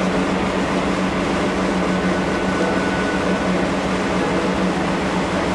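A stationary train's onboard machinery running with a steady, loud drone and a low hum.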